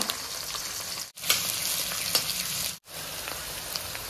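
Hot oil sizzling in a cooking pan as a tempering of nigella seed, dried chilli, onion, garlic and green chilli fries, with light clicks of stirring. The sizzle cuts off briefly twice.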